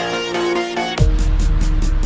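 Background music: a melodic passage of held notes gives way, about halfway through, to a heavy electronic beat with deep booming kicks, strong bass and steady hi-hat ticks.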